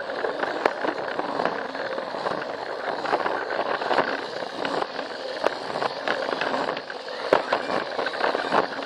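Plarail toy train running on plastic track, heard from on board: its small motor and gears whirring steadily, with frequent irregular clicks and clacks as the wheels cross the track joints.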